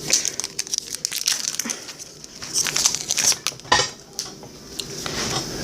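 Foil trading-card pack wrapper being torn open and crumpled by hand: irregular crinkling with several sharp crackles.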